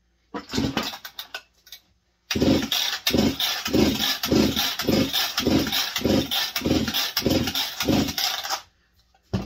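Husqvarna 162SE chainsaw turned over on its pull-starter with a compression gauge in the spark plug hole, without firing: a short pull, then about six seconds of steady cranking with even pulses about twice a second. This is a compression test on a freshly rebuilt cylinder with a new ring.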